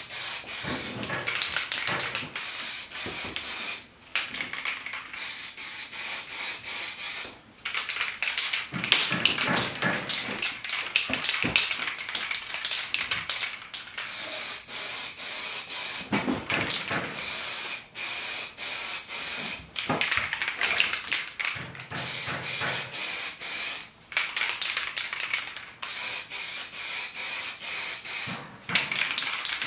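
Aerosol spray paint can hissing in long bursts of several seconds, with short breaks every few seconds as the nozzle is released and pressed again, while engine cases are being painted.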